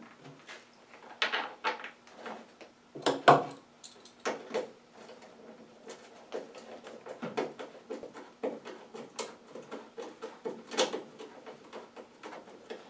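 Handling noises of work on a self-propelled push mower's plastic covers and engine top: scattered clicks, taps and light rattles of plastic and a screwdriver, with a few louder knocks about one, three and eleven seconds in.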